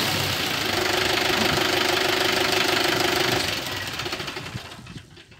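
Mahindra 575 DI tractor's four-cylinder diesel engine running steadily, its sound fading away over the last two seconds.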